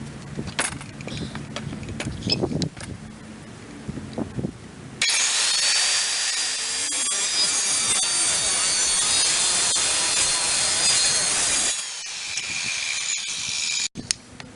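A power saw cutting through a board of hard white oak flooring: a loud, steady cutting noise starts about five seconds in and runs for about seven seconds. It eases slightly, then stops abruptly near the end. Before the cut there is light handling clatter over a low hum.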